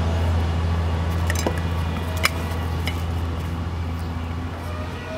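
A steady low motor hum that slowly fades, with a few light clicks of chopsticks against a ceramic plate as starch-coated hairtail pieces are set down.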